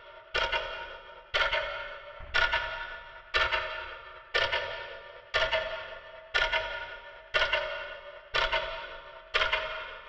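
Clock sound effect: a bell-like strike about once a second, each one ringing and fading away before the next.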